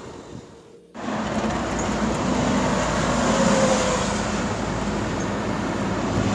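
Steady vehicle engine noise that starts about a second in: a low, even hum under a wide rushing haze.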